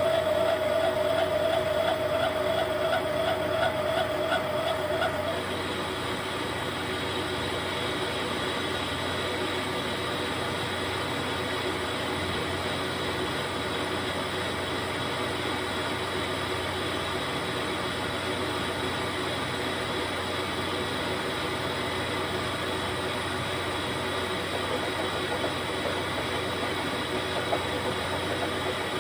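Metal lathe turning a long steel part: for the first five seconds or so a loud, pulsing cutting tone, which then stops, leaving the machine running steadily with a steady hum.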